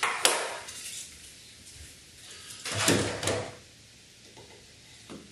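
A wooden strip scraping as it is pushed into a tight fit in an aluminium conservatory frame: a short rubbing scrape at the start, a louder one about three seconds in, and a light click near the end.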